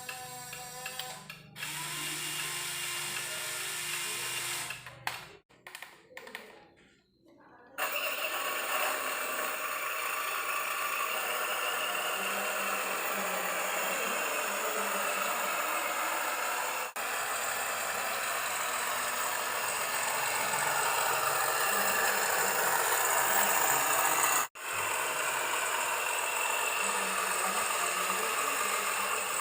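Small electric motors and gearboxes of radio-controlled model trucks and excavators whirring steadily, with a few abrupt breaks where the footage is cut.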